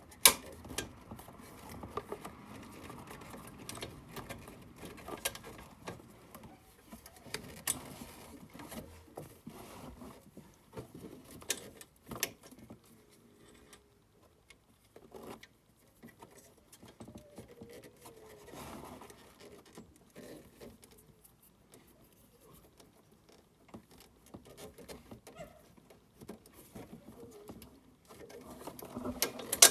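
Scattered metal clicks, taps and light scraping as a shock-mount bolt and washers are worked through an ATV's front shock mount, a flathead screwdriver holding the washer in place. The sharpest click comes just after the start.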